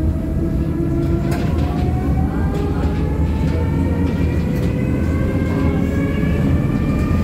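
M23 tram running along the street, heard from inside: a steady low rumble of wheels on rail, with the whine of its motors slowly rising in pitch as it picks up speed, and a few sharp clicks from the track.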